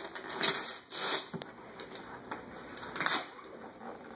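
Wrapping paper being crinkled and torn off a boxed present by a small child's hands, in a few short rustling rips.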